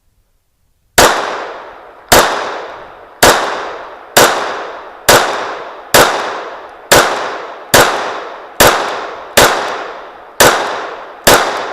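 A handgun fired twelve times at a steady pace, about one shot a second. Each shot is loud and sharp, then rings out and fades slowly.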